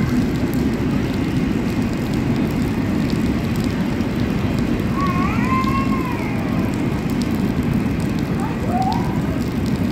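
Double-stack container cars of a freight train rolling past, a steady low rumble of wheels on rail.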